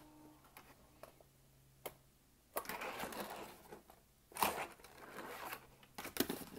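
Tech Deck fingerboard's small wheels rolling and rattling on a cardboard half pipe in two runs of about a second each, with sharp clacks as the board hits the ramp.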